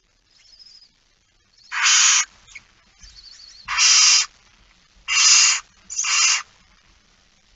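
Barn owl chicks making hissing begging calls in the nest box: four harsh hisses about half a second long, with faint high chittering in between.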